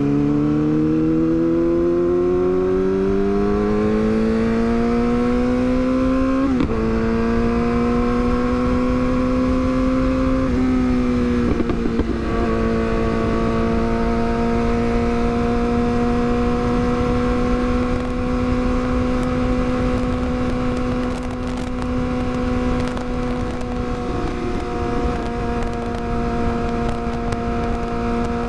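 Yamaha R6's inline-four engine accelerating with rising pitch, shifting up about six seconds in and again around ten seconds, then holding a steady cruise.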